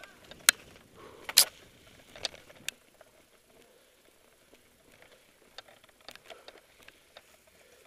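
Mountain bike clattering over rock: sharp knocks and rattles as the wheels hit the ledges, the loudest about a second and a half in, with smaller ticks later on.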